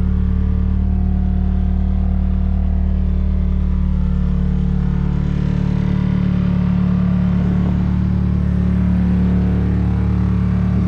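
Turbocharged KA24DE four-cylinder engine of a Nissan 240SX (S13) idling steadily while it warms up in the cold.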